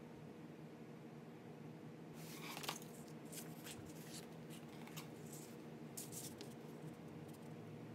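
A sheet of drawing paper and a steel ruler being handled on a cutting mat: from about two seconds in, short rustles and scrapes, with one sharp tap soon after they begin. A faint steady hum of room tone sits underneath.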